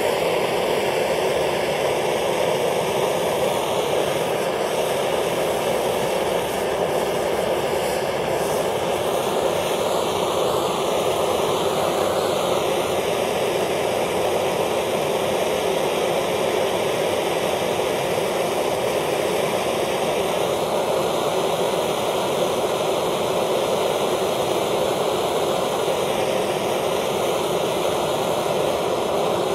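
Handheld gas torch burning with a steady, loud hiss, its flame held against a polymer pistol magazine that is melting and catching fire.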